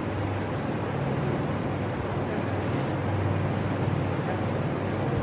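Steady low hum over a constant rush of background noise.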